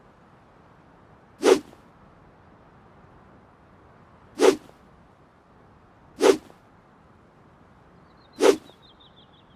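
Handmade longsword swung through the air: four short swishes, about a second and a half in, at four and a half seconds, at six seconds and near the end.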